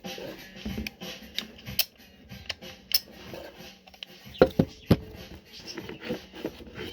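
Scattered clicks, light metal clinks and rustling from handling a newly unboxed cordless angle grinder and its small accessories, with three sharper knocks about four and a half to five seconds in. The grinder is not running.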